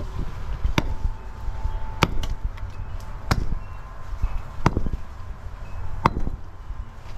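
Sledgehammer striking broken concrete five times, about one blow every second and a quarter, each a sharp crack.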